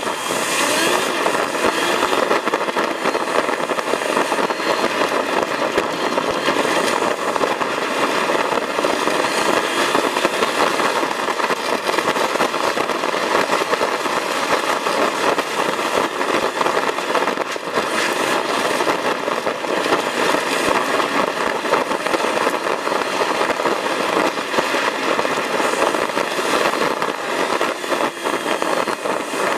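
Off-road vehicle driving over a gravel forest track, heard from inside the cabin: engine and tyre-on-gravel noise, sped up into a steady, fast crackling rattle.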